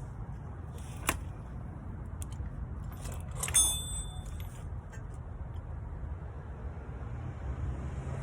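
Metal tools and parts clinking, a sharp click about a second in and a louder ringing metallic clatter a little past three seconds, over a steady low rumble.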